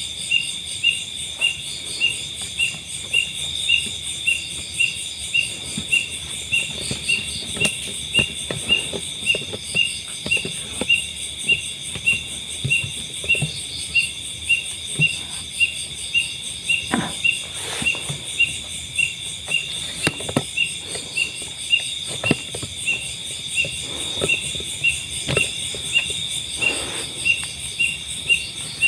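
Night insects: one chirps regularly, about one and a half chirps a second, over a steady high-pitched insect trill, with faint scattered rustles and knocks underneath.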